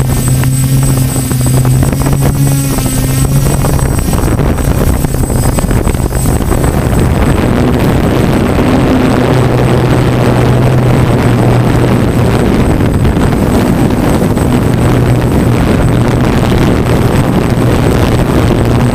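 DJI Flamewheel F550 hexacopter's six motors and propellers running in flight, picked up by the camera mounted on the craft: a loud, steady buzzing hum whose pitch shifts slightly now and then as the motors adjust.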